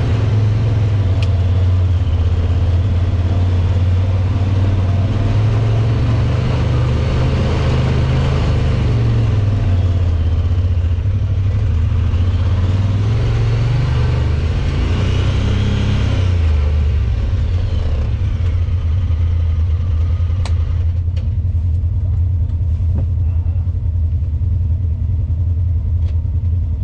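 Side-by-side UTV engine running under way, a steady low drone with shifting pitch under a hiss of driving noise. About two-thirds of the way through the hiss drops away while the engine keeps running as the machine slows to a stop.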